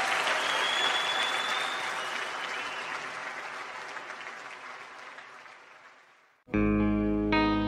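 Concert audience applauding with a couple of whistles, fading out over about six seconds. About six and a half seconds in, the next song cuts in suddenly with sustained electric guitar chords.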